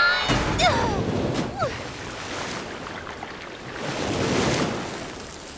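Cartoon sound effects of a toppling water tower: a crash about a third of a second in and two short falling squeals, then rushing, surf-like water that swells about four seconds in and eases off near the end.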